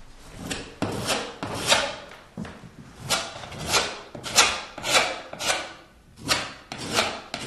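Putty knife scraping and working quick-setting patching compound in a small tub, a dozen or so short scraping strokes about half a second to a second apart.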